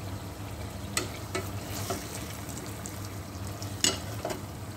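Aloo matar curry sizzling in a stainless steel pot as a black plastic slotted spoon stirs it, with a few sharp knocks of the spoon against the pot, the loudest about four seconds in. A low steady hum runs underneath.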